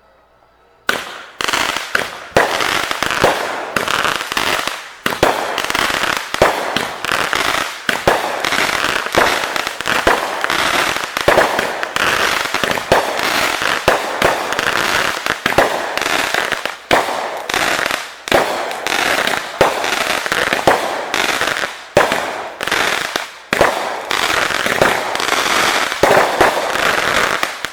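Fireworks going off: a long, unbroken run of rapid bangs and crackle that starts suddenly about a second in and stops suddenly at the end, like a long firecracker string.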